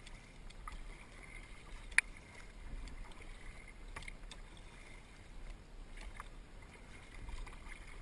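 Kayak paddles dipping into and dripping water as a tandem kayak glides on calm water, with light splashes and small clicks. A single sharp click about two seconds in is the loudest sound.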